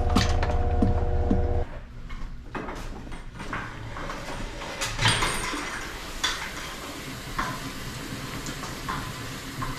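A small motor runs steadily with a hum, then cuts off suddenly about a second and a half in. Scattered light clicks and metallic clatter follow.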